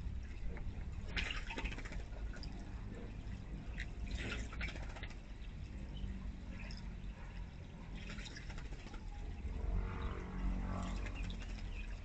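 Water trickling steadily from a bird bath fountain's upper bowl into its basin, with a few brief splashes from a bird bathing in the basin.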